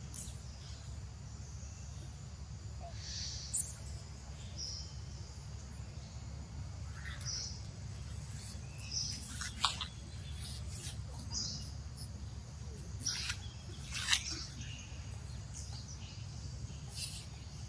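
Outdoor forest ambience: scattered short, high-pitched bird chirps over a steady low rumble, with two sharper clicks, one about halfway through and one later on.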